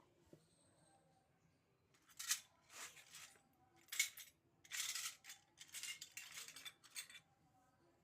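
Unboxing of a miniature plastic toy kitchen set: a run of short rustling and scraping noises as the pieces and their packaging are handled, starting about two seconds in and stopping about seven seconds in.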